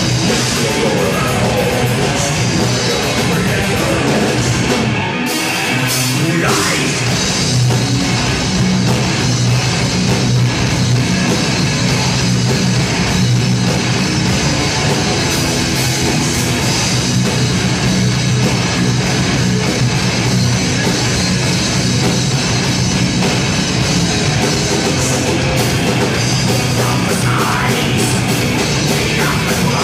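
Live metal band playing loud, with distorted electric guitars, bass guitar and drum kit, and a short break in the low end about five seconds in.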